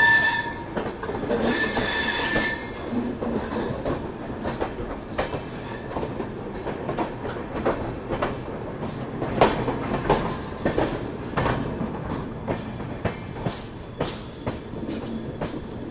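Express train wheels squealing against the rails, a high ringing squeal at the start and again for about a second shortly after. Then irregular clacks and clunks as the wheels run over rail joints and points, one louder clunk about halfway, over a steady rolling rumble.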